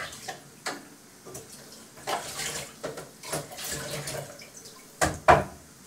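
Water splashing unevenly at a kitchen sink as a utensil is rinsed by hand. Two sharp knocks come near the end.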